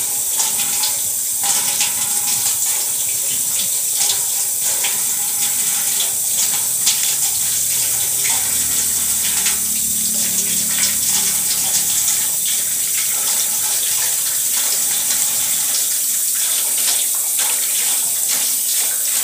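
Steady stream of tap water pouring into a stainless steel basin, splashing over hands that rub and rinse an eel under the flow.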